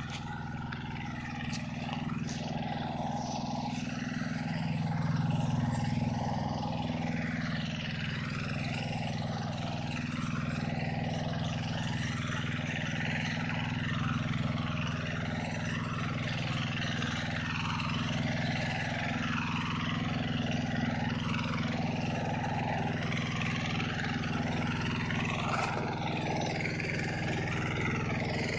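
Tractor engine running steadily with a rotary tiller, a steady low engine note under a rough, busy churning; it swells slightly about five seconds in.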